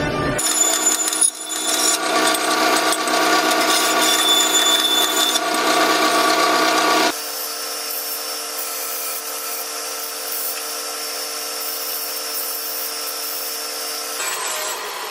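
Belt grinder running, grinding the end of a bent steel rod. About seven seconds in, the sound suddenly drops to a quieter, steadier whine.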